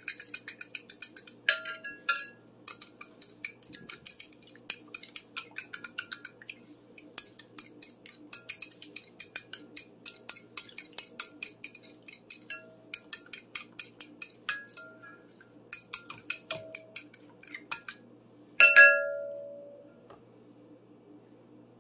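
A fork beating eggs in a clear glass mixing bowl: a quick run of light clinks of metal on glass, about five a second, with short pauses. Near the end comes one loud ringing clink of the fork against the glass bowl, which rings on for a second or so before the beating stops.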